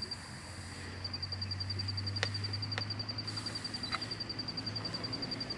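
An insect trilling steadily in fast, even, high-pitched pulses over a low steady hum, with a few sharp clicks around the middle.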